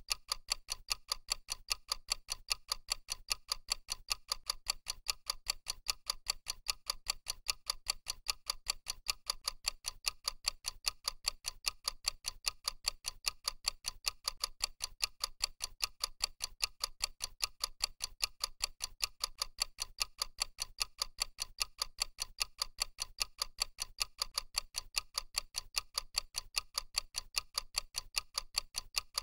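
Clock ticking sound effect of a countdown timer: sharp, evenly spaced ticks at a steady rate.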